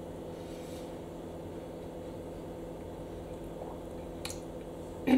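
Steady low hum of kitchen room tone, with one faint click about four seconds in.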